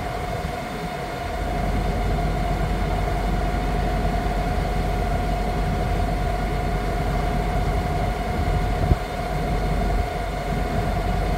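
Septic vacuum truck's pump running steadily, a constant whine over a low rumble that grows stronger about a second in, as it pumps liquid out of a plastic tote. A single short knock about nine seconds in.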